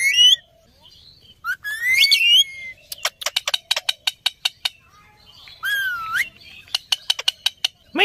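Indian ringneck parakeets calling: gliding, wavering whistled calls, one right at the start, one about a second and a half in and one near the six-second mark. Between them come two runs of rapid clicking chatter.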